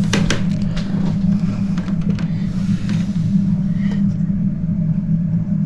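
A steady low hum runs throughout, with a few sharp metallic clicks near the start as pliers grip and slip on a tight screw in a clock's movement.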